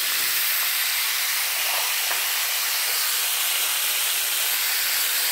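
A steady stream of running water splashes onto a smartphone lying in a basin, giving an even hiss.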